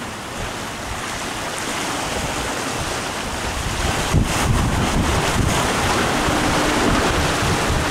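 Surf washing and breaking over jetty rocks, with wind buffeting the microphone; it grows louder from about four seconds in.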